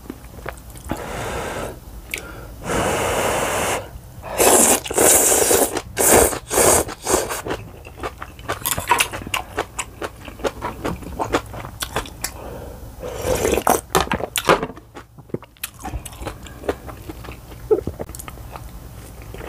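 Close-miked eating: a few long, noisy slurps of Shin Ramyun instant noodles, then chewing with many small wet mouth clicks, and another slurp partway through. A spoon scrapes the bibimbap bowl.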